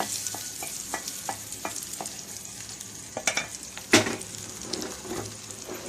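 Hot tempering oil with mustard seeds, urad dal, dried chillies and curry leaves sizzling as it is poured onto ground roasted-brinjal chutney, with scattered small crackles and clicks of the spoon and pan, one louder knock about four seconds in.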